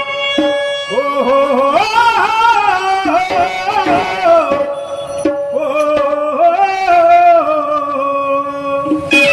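Indian folk music: a wavering, gliding melody in two phrases over a steady held drone note, with a few hand-drum strokes near the start.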